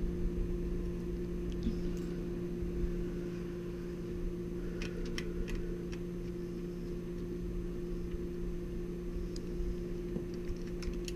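A steady low hum, with a few faint clicks about halfway through as a small screwdriver works the screw terminals of a switching power supply.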